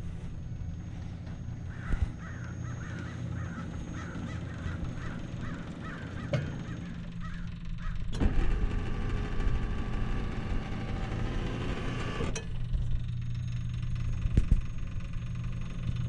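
A bird calling in a quick series of short calls, about two a second, over a steady low engine hum. After the calls, a louder buzzing sound made of many stacked tones runs for about four seconds and then stops.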